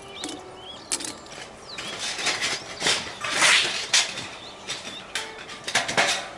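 Irregular sharp knocks and clicks with crunching, rustling noise, loudest about three seconds in, and a few short bird chirps in the first two seconds.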